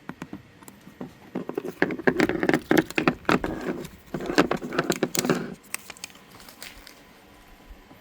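Release liner being picked at and peeled off the double-sided adhesive tape on a GPS tracker. It makes rapid crackling and rustling for about four seconds, from about two seconds in, with a short break in the middle.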